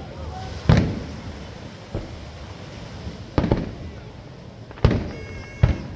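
Fireworks exploding: four loud bangs with rumbling, echoing tails at irregular intervals, plus one smaller pop about two seconds in.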